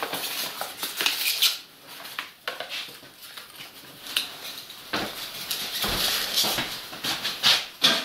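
Rustling, scraping and light knocks of paper sheets and Styrofoam offcuts being rummaged through and handled on a wooden workbench, with a dull thump about six seconds in.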